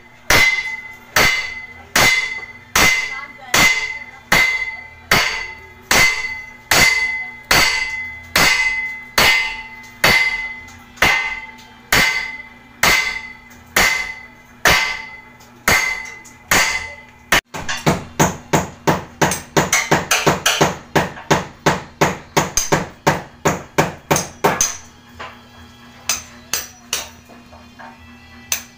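Hammering: steady blows about once a second, each with a short ringing note. Past the middle it breaks into a quick run of about four blows a second, then a few scattered blows.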